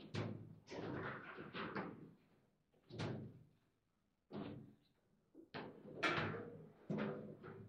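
Foosball table in play: sharp knocks and clacks of the ball, plastic figures and rods, coming in quick clusters with a short pause about halfway through. The loudest knocks come about six seconds in.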